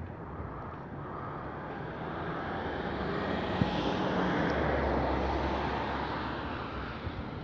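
A car driving past on the street: its tyre and engine noise swells to a peak near the middle and then fades away.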